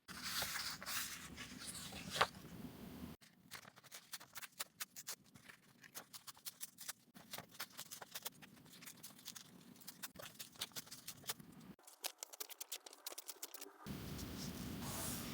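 Paper and journaling materials handled close up: about three seconds of rustling and scraping with one sharp click, then a long run of quick small clicks and snips. The sound changes abruptly a few times.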